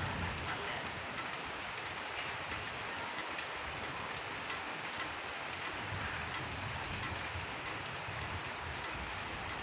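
Steady rain falling on wet, puddled ground: a constant even hiss with a few sharper drops now and then.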